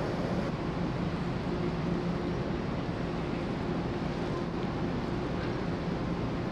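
The New Camellia ferry's engines and thrusters running steadily as the ship berths: a constant low hum under a steady rushing noise.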